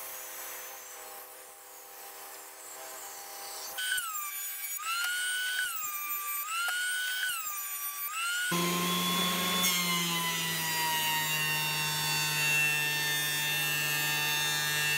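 Woodworking power tools milling hardwood stock: a table saw ripping a board at first, then from about four seconds a motor whose pitch dips and recovers again and again as it loads under the cut, then from about eight and a half seconds a louder steady thickness planer running as it feeds the boards.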